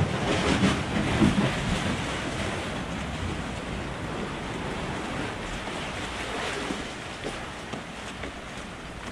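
Sea waves washing and surging, swelling louder over the first two seconds and then settling into a steady wash, with wind buffeting the microphone.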